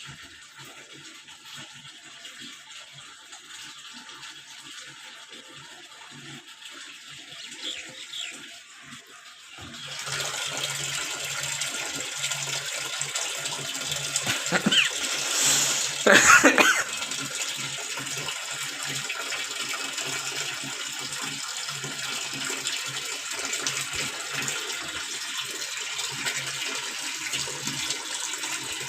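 Washing machine filling with water: about a third of the way in, water starts rushing steadily into the tub with a low hum underneath, and a louder gush follows around the middle.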